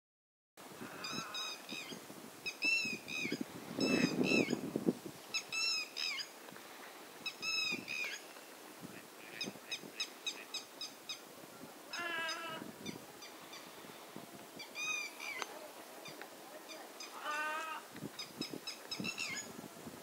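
Several kinds of birds giving repeated alarm calls at an eagle overhead: short harsh calls every second or two, a fast rattling series about ten seconds in, and longer chattering calls around twelve and seventeen seconds. A low rumble comes about four seconds in.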